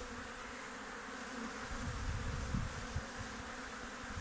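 Honeybees buzzing around an open hive whose honey frames are being taken, a steady hum throughout. A low rumble comes in around the middle.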